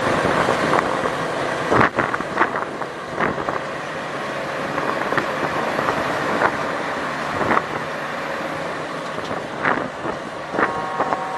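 Bus on the move: steady engine and road noise with scattered clicks and rattles. Near the end a short, steady high tone sounds.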